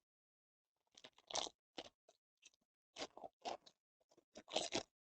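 Plastic wrapper of a Panini Absolute football card pack crinkling as it is torn open, in a series of short, faint crinkles with the busiest, loudest stretch near the end.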